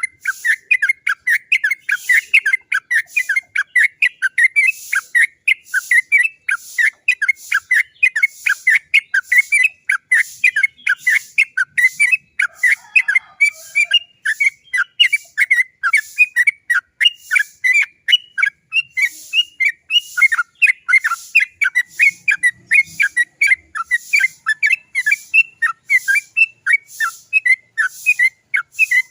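Yellow-vented bulbul (trucukan) singing a long, unbroken rolling run of short chattering 'cok cok cok' notes, about three a second.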